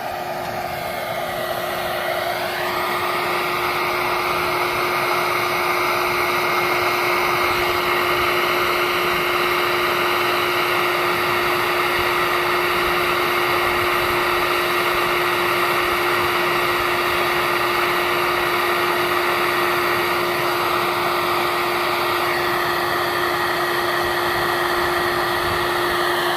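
Electric vacuum motor switching on and spinning up with a rising whine over the first couple of seconds, then running steadily at full speed.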